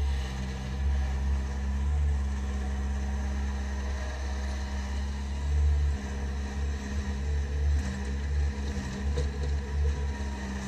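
Bobcat 763 skid-steer loader's diesel engine running with a steady low drone, swelling a little as the loader works its lift arms and bucket.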